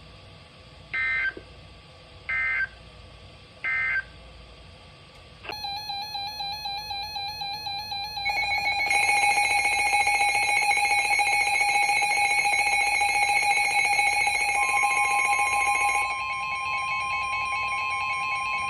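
NOAA Weather Radio emergency alert: three short bursts of the SAME digital header data tones. Then a weather alert receiver's electronic alarm sounds as a rapidly pulsing, many-toned beeping that gets louder about eight seconds in, and a steady 1050 Hz warning alert tone joins about fifteen seconds in, signalling a new severe thunderstorm warning.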